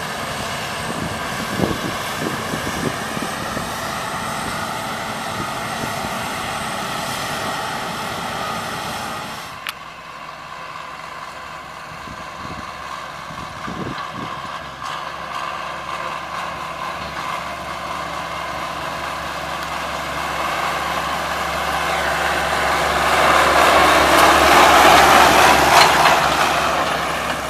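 Engines of heavy harvest machinery running steadily, with a sudden change in the sound about ten seconds in. Later one machine comes closer, grows loud, passes and fades near the end.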